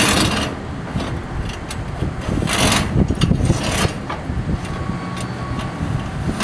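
Aluminium mounting rail being slid onto the bolt lugs of metal roof brackets: metal scraping and clicking, with two longer scrapes near the middle and a few short clicks after, over a steady low rumble.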